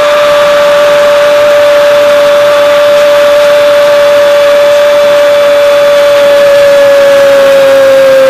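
A football TV commentator's single long shout of "gol", held at one high pitch for the whole time, over a stadium crowd cheering a goal.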